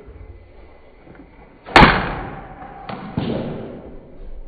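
A loud thud about two seconds in, followed by two softer thuds about a second later, each trailing off.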